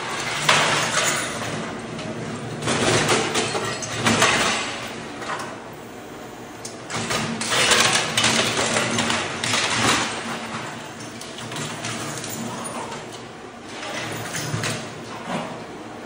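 Floor scraper machine's blade scraping and breaking tile and thinset mortar off a concrete slab, a harsh grinding and crackling that surges loud and eases off every second or two.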